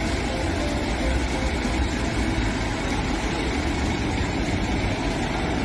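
Heavy truck engine idling with a steady rumble, the sound of a cement mixer truck.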